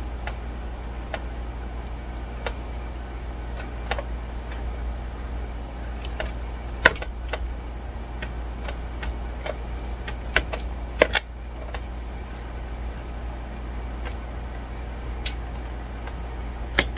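Scattered metallic clicks and clinks of kitchen utensils against a baking pan as tender ribs are handled, the loudest about a third and two thirds of the way through, over a steady low hum.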